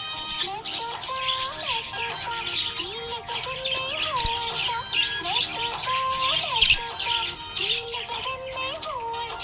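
Budgerigar chirping, many quick chirps in a steady stream, over background music with a stepping melody.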